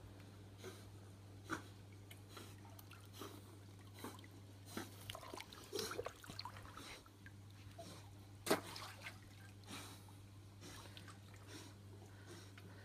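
Pool water lightly sloshing and splashing around a cattle dog paddling in a swimming pool, with a cluster of small splashes about six seconds in as a hand dips into the water. A sharp click about eight and a half seconds in is the loudest sound, over a steady low hum.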